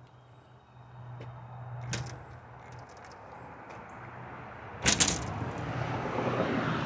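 Aluminium storm door and its new latch handle: a couple of faint clicks, then a loud clatter of sharp metal clicks about five seconds in as the door shuts and latches. After it comes a rising rustling noise.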